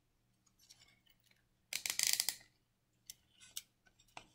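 Plastic zip tie ratcheting as it is pulled tight: a quick run of clicks about two seconds in, then a few single clicks further apart as it reaches the point where it won't pull any tighter.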